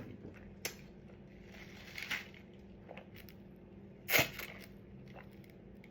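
Close-miked eating sounds as corned beef is chewed: scattered wet mouth clicks and soft smacks, with a louder smack about four seconds in.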